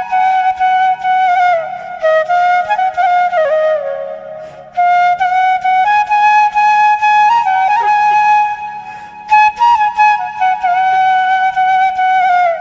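Flute music: a slow melody in long phrases that slide between notes, over a soft low accompaniment, with a brief pause about four seconds in and another near nine seconds.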